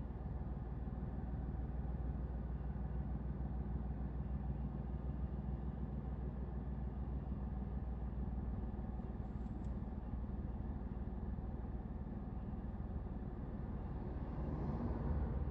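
Steady low rumble of a stationary car idling, heard from inside the cabin. Near the end another car passes and swells briefly.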